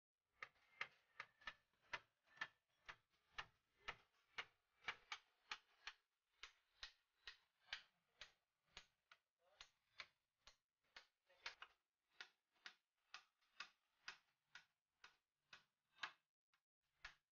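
Hammer driving nails into a wooden slat, with sharp, evenly spaced blows about three a second. The blows stop briefly about six seconds in and again near the end.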